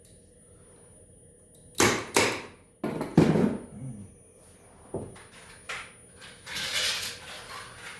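Hammer blows on the metal of an Arctic Cat Jag snowmobile engine during teardown: a series of sharp knocks, with a second of scraping about six and a half seconds in.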